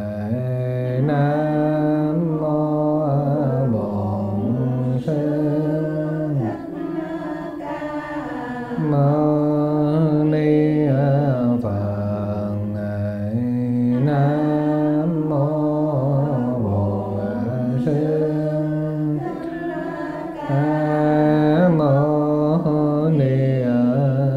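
A monk chanting a Vietnamese Buddhist verse in slow, long-held notes that step up and down in pitch.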